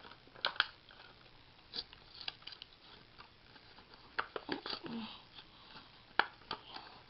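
A Hot Wheels blister package being opened by hand, with scattered sharp clicks and crackles of plastic and cardboard.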